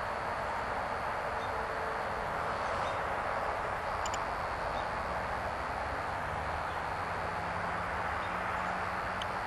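Steady outdoor background noise, an even rush. A low hum comes in about halfway through.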